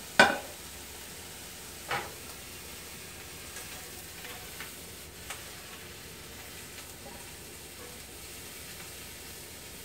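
Ham slices sizzling steadily in a skillet over a gas burner as they are lifted out. A sharp knock about a quarter second in is the loudest sound, with a second, lighter one about two seconds in and a few faint ticks after.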